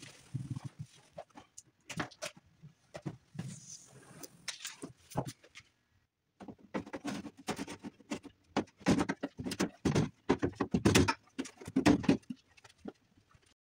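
Sped-up workshop handling noise: rapid rustling, tapping and clicking of hands and parts on a snowmobile's hood and chassis, breaking off briefly about six seconds in, then busier and louder clatter.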